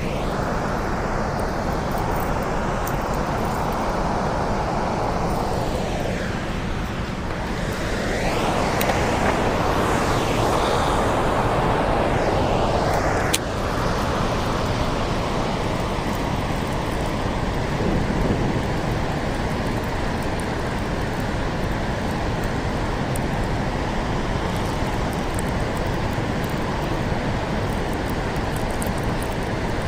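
Steady rushing of fast, churning tailwater below a dam, with wind buffeting the microphone, stronger in the first half.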